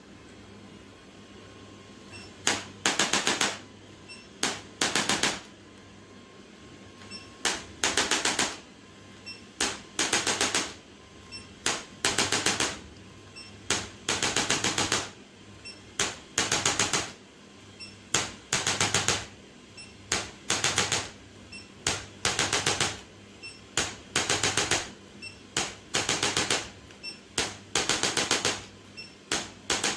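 Handheld chiropractic adjusting instrument firing in short bursts of rapid mechanical clicks, each burst under a second, about one every second or two, with short pauses between groups.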